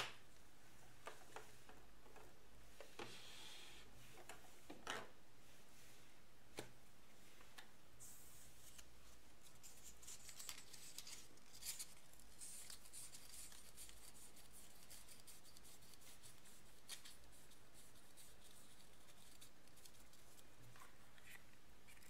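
Faint handling sounds: thin paper strips rustling as they are rolled up, mostly in the middle stretch, with scattered light clicks from small clear plastic capsules being opened and snapped shut.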